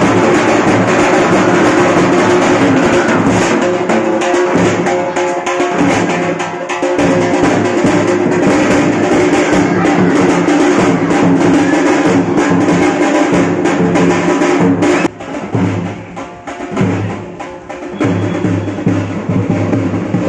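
Large steel-shelled dhol drums beaten with sticks in a fast, steady festival rhythm, loud. The drumming drops away briefly about fifteen seconds in, then picks up again.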